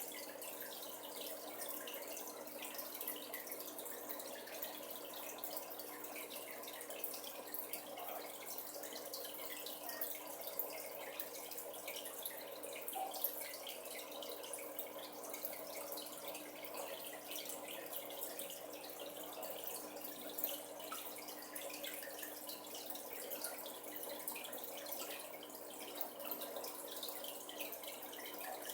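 Steady trickling and dripping of aquarium water, with many faint crackling ticks and a few slightly louder single ticks.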